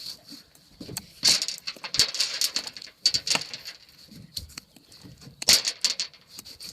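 Thrown rocks hitting and clattering in a scatter of irregular sharp knocks, the loudest about a second in, about three seconds in and about five and a half seconds in.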